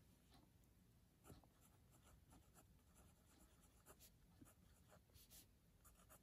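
Faint scratching of a pen writing on a notebook page, in short irregular strokes.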